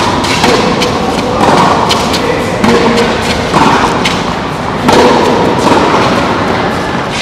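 Tennis rally on a hard court: ball struck by rackets and bouncing, a sharp thump about every second or so.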